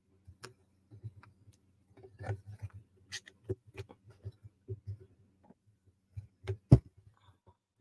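Small wooden puzzle-box pieces clicking and knocking together as they are handled and fitted by hand: an irregular scatter of light taps, with one sharper knock near the end.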